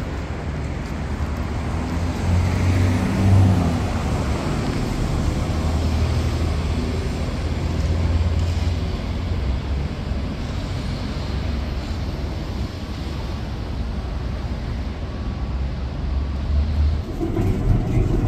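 Road traffic on a city street: a steady rumble of passing cars and a bus, swelling briefly a couple of seconds in as a vehicle goes by.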